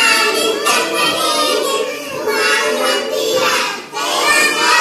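Young children singing together over music.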